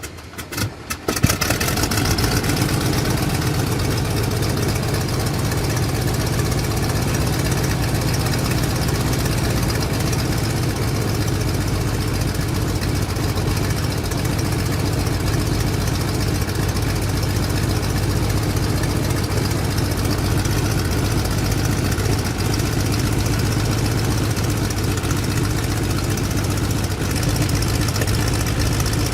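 Stearman biplane's radial engine heard from the cockpit: it cranks with rapid clicking, catches about a second in with a loud burst, then settles into a steady idle.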